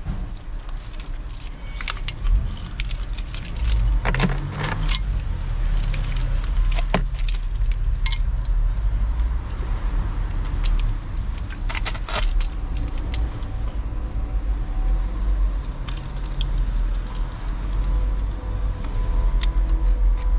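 A vehicle driving, heard from inside the cabin: a steady low engine and road rumble, with keys on a key ring jangling and clinking irregularly over it.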